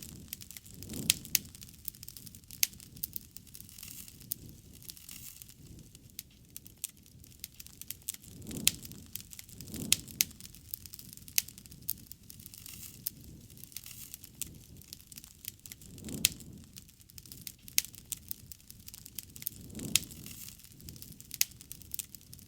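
Wood fire crackling, with many sharp irregular pops and, every few seconds, a soft low rush.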